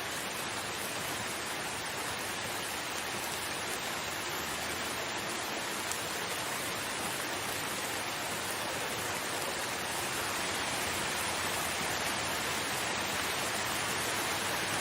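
Steady rain falling, an even hiss without separate drops standing out, growing slightly louder about two-thirds of the way through.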